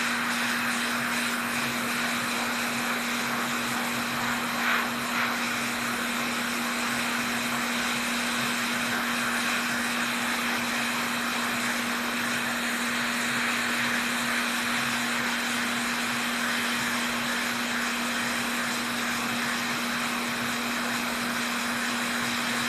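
Small electric blower motor running steadily, a constant whirring noise with a fixed hum under it and a brief rise in level about five seconds in.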